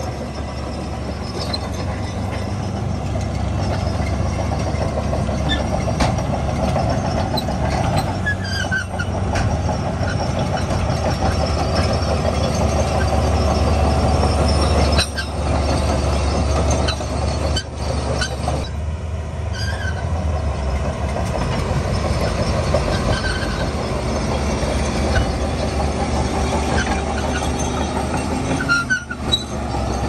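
Heavy diesel engines of earthmoving machinery, a dump truck and a bulldozer, running steadily under load, with a deep rumble and a few short high squeaks.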